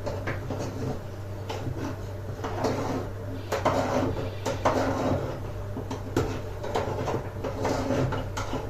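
Kitchen handling clatter: a spoon clicking and knocking against a honey jar and a cezve as another spoonful of honey goes in, scattered light knocks over a steady low hum.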